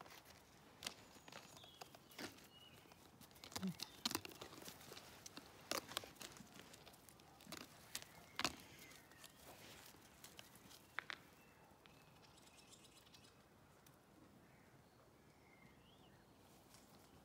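Faint, irregular taps and clicks of footsteps over a cobbled stone path, most frequent in the first ten seconds or so. After that it goes quieter, with a few faint bird chirps.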